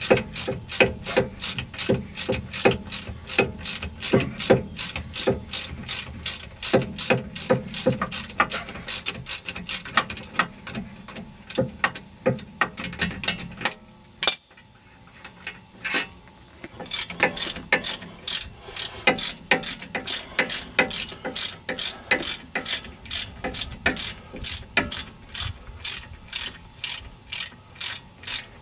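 Socket ratchet clicking steadily, about three clicks a second, as it backs out the hub bearing assembly's mounting bolts. It stops briefly about halfway through, with one lone click, then carries on.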